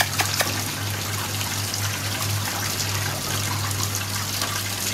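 Steady trickling water with a constant low hum underneath, and a few faint clicks just after the start.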